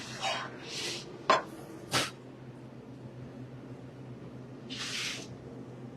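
Two sharp clinks of kitchen utensils against dishware during plating, with a short hiss about five seconds in, over a steady low kitchen hum.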